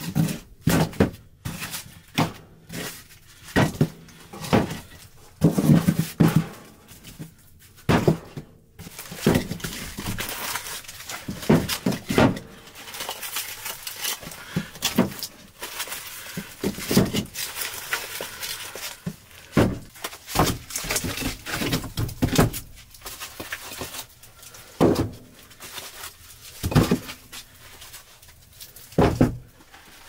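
Split firewood logs being stacked by hand, knocking together in irregular wooden clunks, with rustling and handling noise between the knocks.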